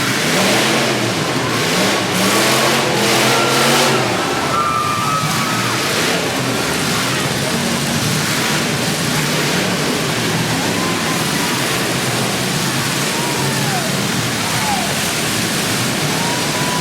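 Demolition derby cars' engines revving hard, their pitch rising and falling, strongest in the first few seconds, over a dense steady roar of engine and arena noise.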